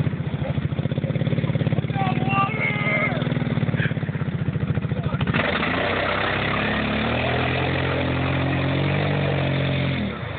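Side-by-side UTV engine running as it pushes through deep mud water, chugging at low revs at first, then revving up with a rising pitch from about halfway as it drives out, with water splashing around the tyres.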